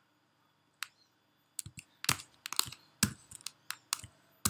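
Computer keyboard typing: a single keystroke a little under a second in, then a quick run of keystrokes from about a second and a half in.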